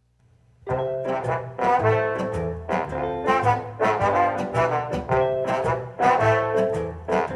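Recorded band music played through a 300B push-pull tube amplifier: a brass-led instrumental intro in a jazzy swing style. It starts about a second in, after a brief silence.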